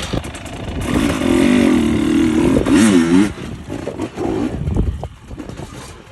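Off-road motorcycle engine revving, its pitch wavering up and down and dipping sharply near the end of the loudest stretch, then dropping back to a lower, rougher running sound.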